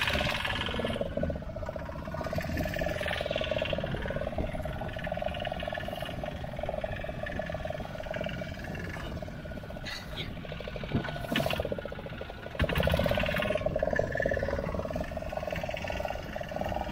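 A fishing boat's engine running steadily under way, a constant drone, with wind and water rumble underneath; the rumble gets louder about thirteen seconds in.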